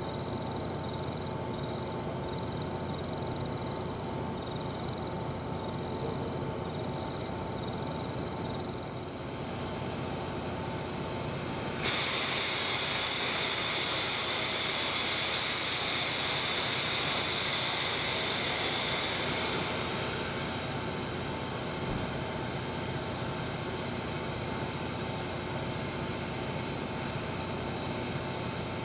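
Steam hissing from the stalled C57 steam locomotive: a loud hiss starts suddenly about twelve seconds in, holds for about eight seconds, then eases to a quieter steady hiss.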